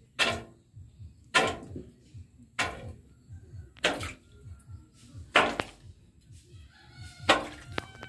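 Hand tool striking rock at the bottom of a freshly dug well, about six sharp blows roughly a second and a quarter apart, each echoing briefly in the well shaft.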